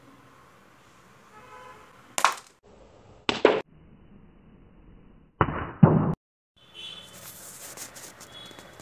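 A matchstick rocket, heated by a lighter flame, fires with a short, sharp fizzing pop. The burst is heard three times, the second and third duller than the first.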